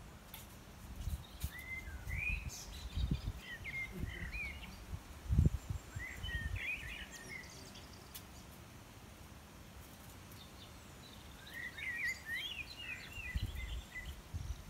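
Small birds chirping in quick twittering phrases, three bursts of song with pauses between, over a faint outdoor hiss, with a few low bumps, the strongest about five seconds in.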